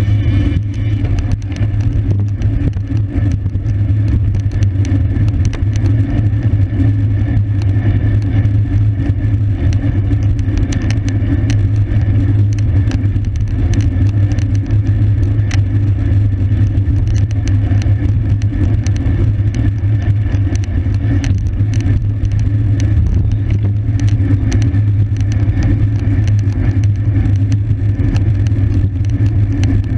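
Steady wind rumble on the microphone of a camera riding along in a bicycle race, with scattered light clicks throughout.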